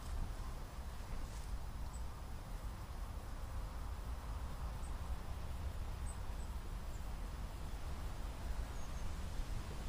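Steady low wind rumble on the microphone outdoors, with a few faint, short, high bird chirps scattered through it.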